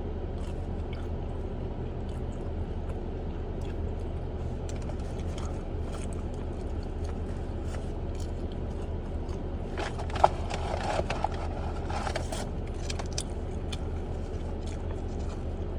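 Steady low hum of an idling car, with scattered small clicks and scrapes of someone eating, and a sharp click about ten seconds in.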